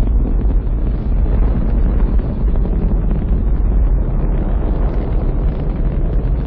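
Space shuttle launch roar from the solid rocket boosters and main engines at liftoff: a loud, continuous low rumble with a rough, ragged texture.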